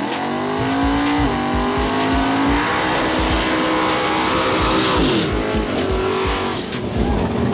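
Drag-race cars launching hard off the start line. The engine note climbs steeply, drops at a gear change about a second in and climbs again. A car passes close by with a hiss of tires, and its engine note falls away about five seconds in.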